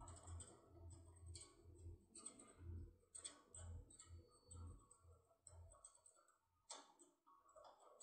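Faint, irregular metallic clicks and ticks of a locksmith decoder tool being turned and adjusted inside a brass lock cylinder, with one sharper click about three-quarters of the way through.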